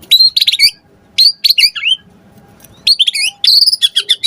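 White-rumped shama (murai batu) in full, energetic song: quick bursts of sharp, high whistled notes sweeping up and down, in three phrases separated by short pauses.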